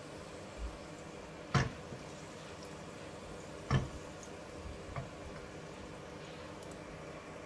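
Pancake batter sizzling in hot oil in a frying pan on a gas hob, over a steady hum. There are two sharp metal knocks, about a second and a half in and near four seconds, as the pan is tilted on the burner grate to spread the batter, with fainter knocks between them.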